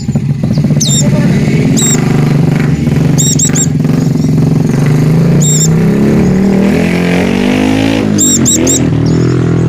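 A vehicle engine running, its pitch rising about two-thirds of the way through, with short high white-eye chirps in clusters of two or three heard over it several times.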